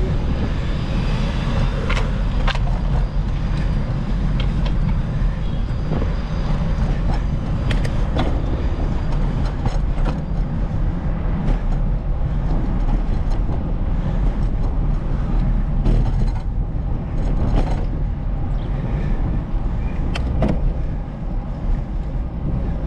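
Steady low rumble of wind and road noise on a bike-mounted camera's microphone while cycling along a city street, with a few sharp clicks and knocks scattered through it.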